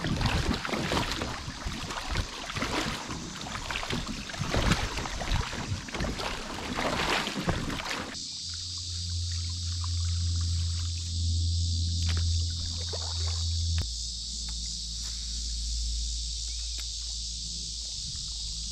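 Wind rushing and buffeting on the microphone over a kayak on the water. About eight seconds in it cuts off abruptly to a steady, high insect chorus over a low, steady hum.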